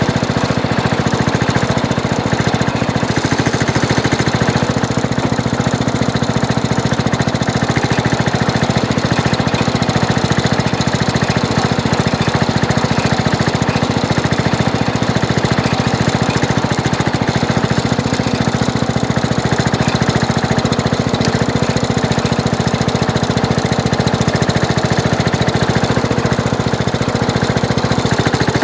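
Craftsman garden tractor's engine running steadily at a constant speed as the tractor drives, heard close up from the hood, with a fast even firing pulse.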